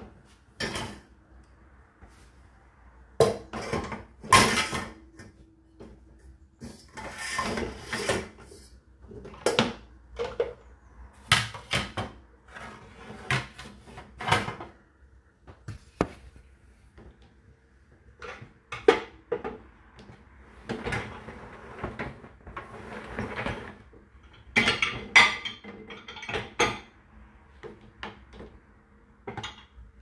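Water spraying inside a Whirlpool dishwasher during its wash, heard from inside the tub: irregular bursts of hiss and splashing against the dishes and racks that come and go, with short quieter gaps between.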